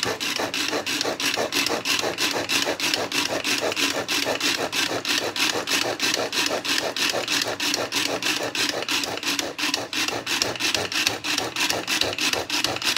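Tupperware SuperSonic Chopper Medium worked by its pull cord in quick regular strokes, about four a second. The cord rasps out and back each time, spinning the chopping blades through a thick peanut sauce to blend it smooth.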